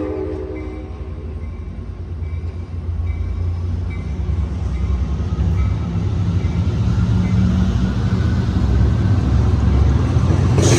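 Amtrak San Joaquin train pulling out, the tail of a train horn chord cutting off in the first moment. A low, steady rumble of the F59PHI diesel locomotive and rolling cars follows, growing louder as the train moves off.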